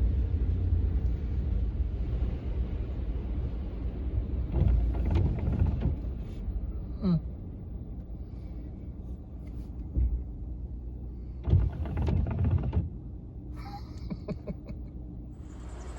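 Low rumble of a vehicle driving slowly on a rough farm road, growing gradually quieter, with a few knocks and bumps along the way.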